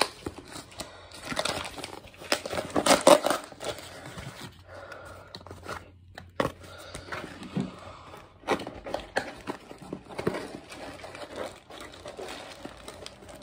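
Packaging being handled and unwrapped by hand: irregular crinkling and rustling with a few sharper rustles, loudest about three seconds in.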